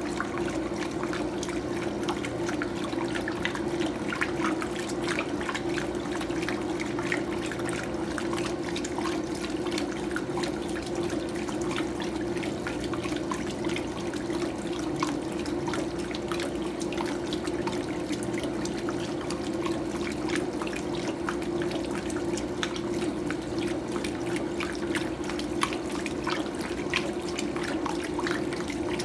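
Electrolux Prosdócimo washing machine in its rinse cycle: water running and splashing in the tub over a steady hum.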